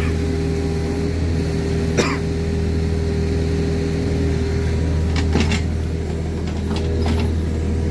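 Excavator diesel engine running steadily at a constant speed, with a few sharp knocks over it: one about two seconds in and several more around five to seven seconds in.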